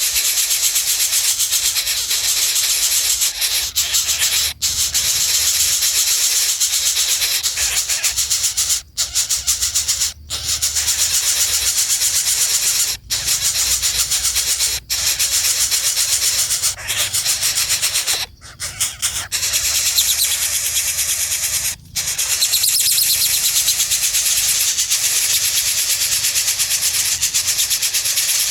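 A loud, steady, high hiss, broken by several brief sudden gaps.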